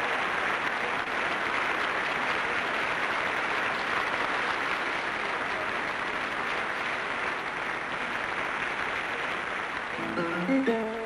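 Large audience applauding, a dense, even clapping at a steady level. Music comes in over it near the end.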